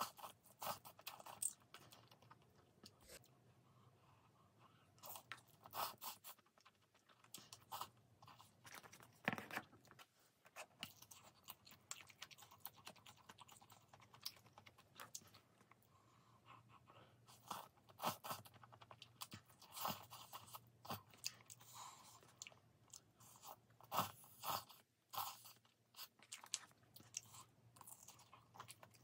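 Close-up chewing and biting sounds of someone eating cheese Buldak cup noodles and a sausage on a stick, in irregular short crunches and chews with quiet pauses between.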